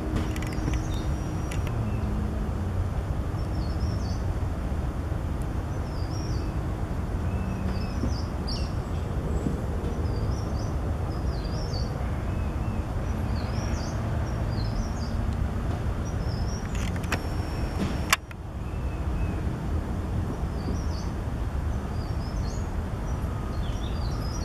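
Steady low rumble of distant city traffic, with a bird's short high chirps repeating every second or so and a single sharp click about 18 seconds in.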